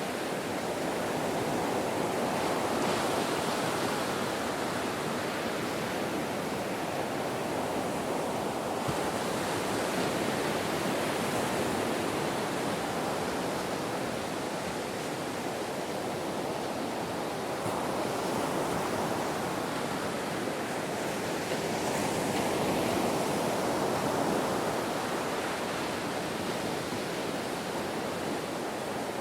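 Ocean waves breaking on a beach: a continuous wash of surf that swells and eases slowly as successive waves come in.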